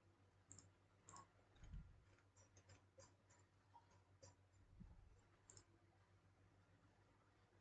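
Faint, scattered computer mouse and keyboard clicks over a low steady hum, with two dull low thumps, one about a second and a half in and one near five seconds.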